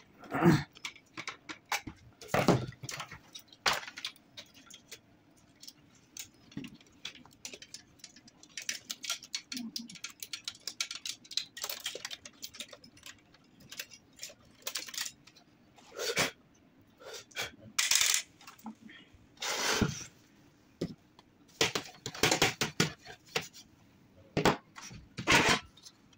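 Irregular clicks, knocks and clatter of small metal and plastic parts being handled while an LBP 6030 laser printer is taken apart, with a few louder rattling bursts.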